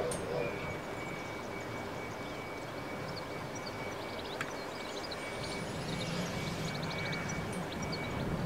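Victorian Railways K class 2-8-0 steam locomotive K183, running light engine in the distance: a faint low rumble over open-air background that grows slightly louder over the last couple of seconds as it approaches.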